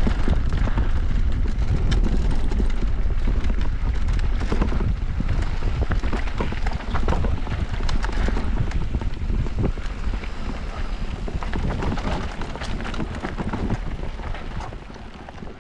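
Mountain bike running fast down a dirt bike-park trail: wind buffeting the camera microphone, tyres on dirt and the bike rattling and clattering over bumps, growing quieter near the end as it slows.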